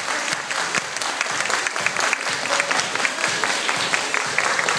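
Applause: many hands clapping together in a dense, irregular patter.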